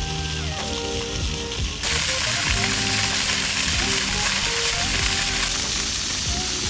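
Background music with a simple stepping melody over a steady high hiss, which becomes louder and brighter about two seconds in.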